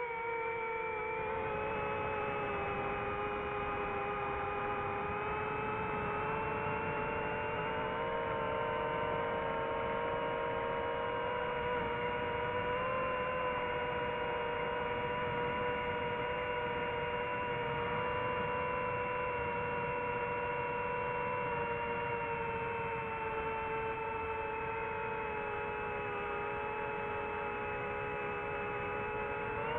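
FPV quadcopter's electric motors and propellers whining at a steady, nearly even pitch in cruising flight, the pitch rising near the end as the throttle comes up.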